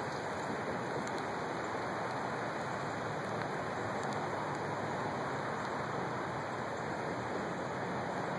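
Steady, unbroken rush of water noise, even in level with no pauses or distinct events.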